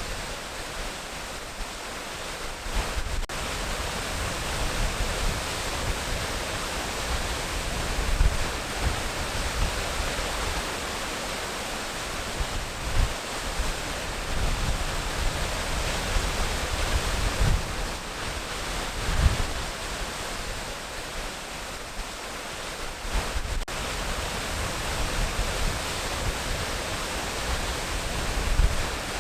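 Waterfall rushing with a steady, even hiss of falling water, with brief low rumbles coming and going underneath.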